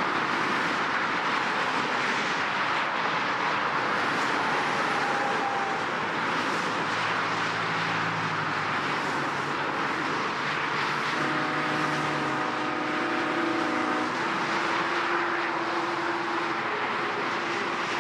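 Steady heavy road traffic: a continuous rush of tyres and engines from many passing vehicles. A low engine hum stands out from about a third of the way in, and a few steady higher tones join it past the middle.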